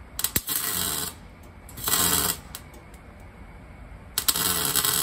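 Electric arc welding on steel: three short bursts of arc crackle, about a second or less each, as a steel patch plate is tacked and stitch-welded in place.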